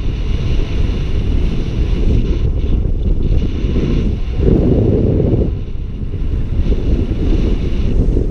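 Airflow buffeting the camera microphone of a paraglider in flight, a low, rumbling wind noise that swells in a stronger gust about halfway through.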